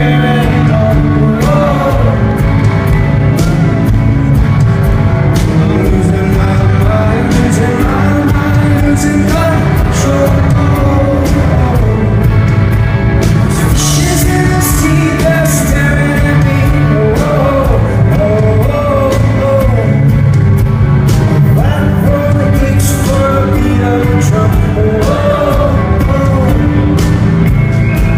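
Live rock song: a full band playing with a lead vocalist singing over it, loud and steady, with regular drum hits throughout.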